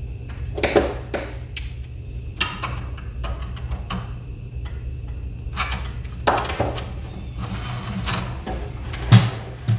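Clicks, knocks and rattles of the Marantz DV4200 DVD player's front panel and disc tray being worked by hand, as the panel is pried and pulled at on the chassis, with a heavier low thump about nine seconds in.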